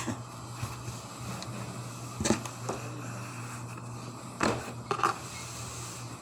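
A steady low hum with a few short scrapes or knocks, two close pairs of them about two and four and a half seconds in.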